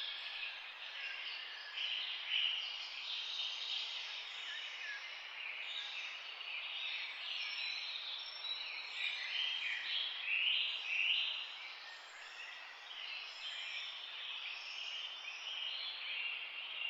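A flock of small parrots chattering, with many overlapping squeaky chirps and warbles running on without a break.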